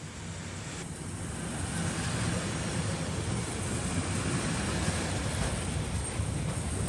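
Freight train of flat wagons loaded with steel plates rolling past, a steady rumble of wheels on the rails that grows louder over the first couple of seconds and then holds.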